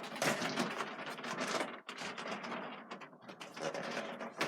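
Toy packaging being handled and opened: a fast, irregular run of clicks and rustles of cardboard and plastic, with a sharper click near the end.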